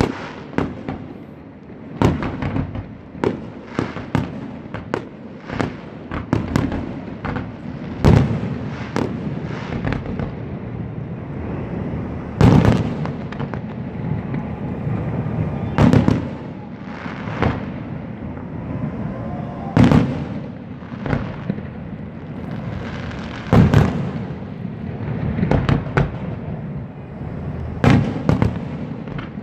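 An aerial fireworks display: shells bursting with loud bangs every second or two, the biggest booms a few seconds apart, over a steady crackle and rumble from the bursts.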